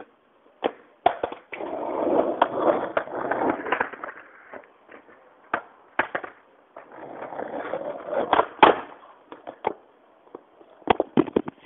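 Skateboard wheels rolling on concrete in two runs of a couple of seconds each, with sharp clacks of the wooden deck and tail striking the ground scattered between and around them.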